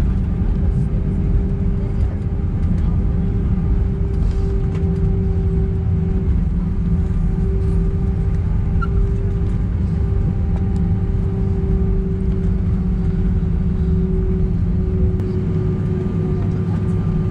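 Airbus A319 cabin noise as the airliner rolls along the ground after landing: a steady low rumble with a steady hum over it.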